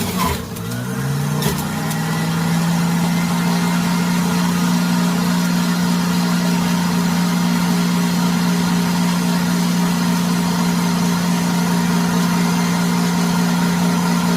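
Hamilton Beach Easy Clean juice extractor's motor started on its low speed: it spins up over the first couple of seconds, with a few clicks at the start, then runs with a steady hum.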